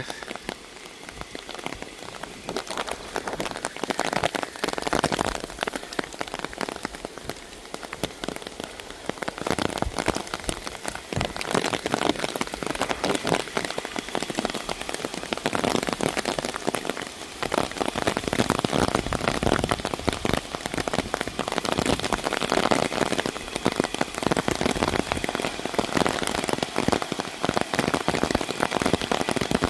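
Rain falling steadily, a dense patter of drops hitting the ground, growing heavier from about nine seconds in.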